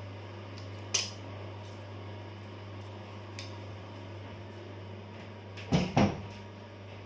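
Small metal clicks and clinks as pliers work a split ring onto a metal spoon lure, with a louder double knock near the end. A steady low hum runs underneath.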